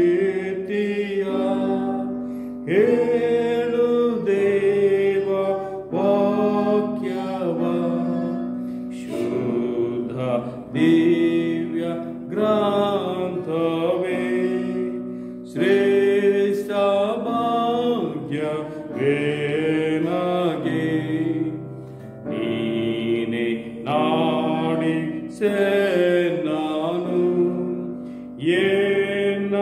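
A man singing a slow Kannada hymn in long, drawn-out phrases, with a steady held note sounding underneath.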